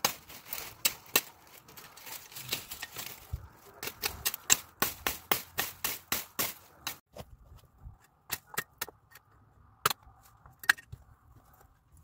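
Dry brush twigs crackling and snapping as a bundle of them is handled and pressed down. Many quick, sharp clicks come thick and fast for the first several seconds, then thin out to scattered clicks.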